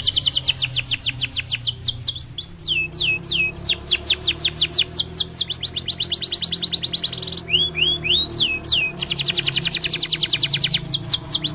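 Domestic canary singing continuously: long, very fast trills of repeated high notes alternating with slower runs of downward-sweeping notes.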